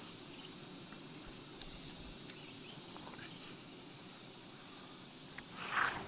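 Wild honey bees massed on a freshly cut honeycomb, buzzing steadily: a low hum under a high hiss. A short, louder scrape comes near the end.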